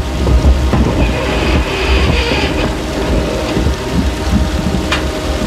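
A loud, dense low rumble with a steady hum through it, and a brief rise of hiss about two seconds in.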